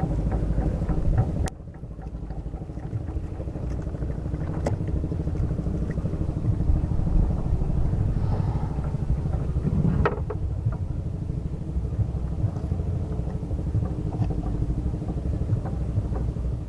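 A small boat's engine running with a steady low pulsing. It dips in level just after a second in, and there are sharp knocks about five and ten seconds in.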